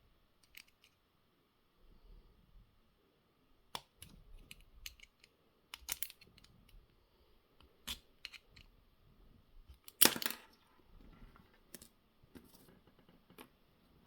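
Scattered small clicks and taps of a car door lock cylinder's metal and plastic parts being handled while it is taken apart. The loudest is a sharp knock about ten seconds in.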